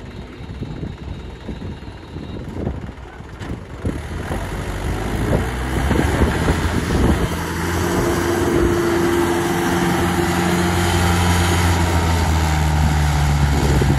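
Tractor diesel engine running unevenly at first, then picking up revs about four seconds in and holding steady at high revs from about eight seconds on.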